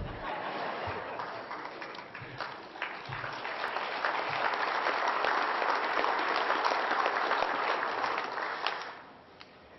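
Audience applauding, building to its loudest midway and dying away about nine seconds in.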